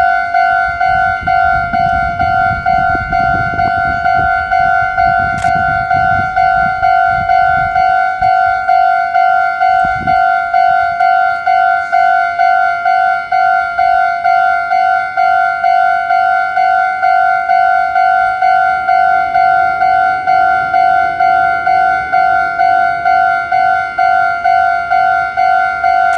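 Japanese railway level-crossing warning bell ringing, an electronic chime repeating evenly at about two strikes a second, signalling an approaching train. A low rumbling noise runs under it for the first eight seconds or so.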